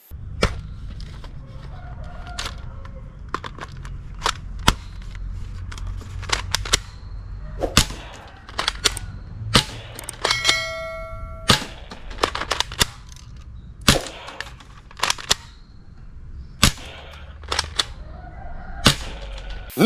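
Sharp plastic clicks and clacks of toy blaster guns being handled, scattered irregularly over a low steady rumble. About halfway, a steady tone with overtones sounds for about a second.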